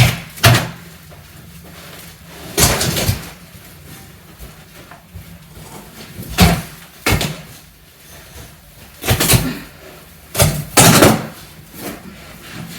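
Old wall-to-wall carpet being pulled up off the floor by hand: about ten irregular, sudden pulls and thuds, a few of them longer.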